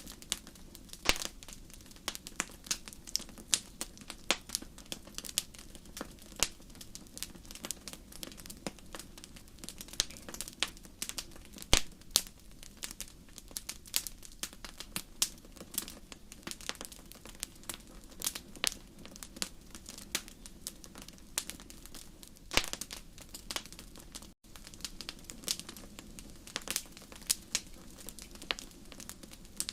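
Wood fire in a fireplace crackling: irregular sharp pops and snaps over a steady low hiss, the loudest pop coming about twelve seconds in. The sound drops out for an instant about two-thirds of the way through.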